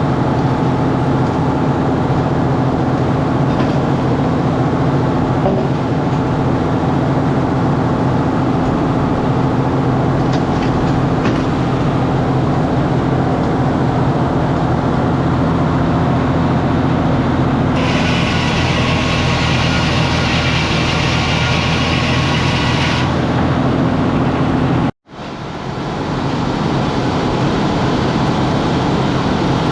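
Sawmill's engine running steadily under load, with a harsher high hiss added for about five seconds past the middle. The sound cuts out abruptly near the end and comes back.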